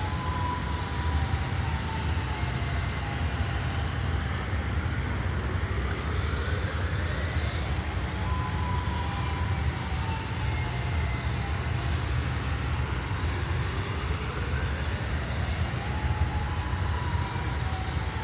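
Distant outdoor warning siren wailing, its pitch rising slowly over a few seconds, holding, then falling, and starting again several times. A steady low rumble lies under it and is louder than the siren.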